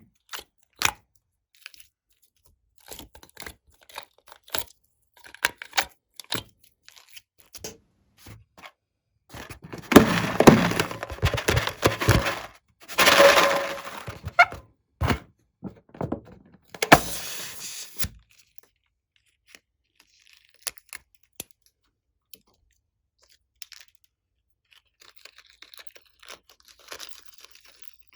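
Slime being worked by hand, giving scattered crackles and clicks. There are longer runs of dense crackling about ten to fourteen seconds in and again briefly around seventeen seconds, then only sparse clicks.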